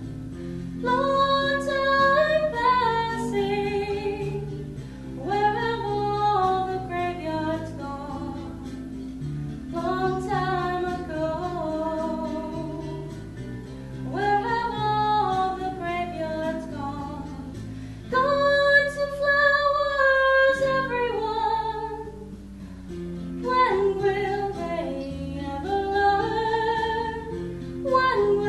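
A young woman singing a slow solo melody in phrases of a few seconds with short breaths between, over an instrumental accompaniment of held chords.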